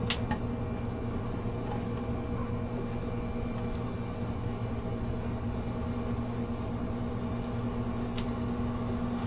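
Steady mechanical hum with a low, even drone, like a running fan or appliance. A sharp click comes just as it starts and a fainter one near the end.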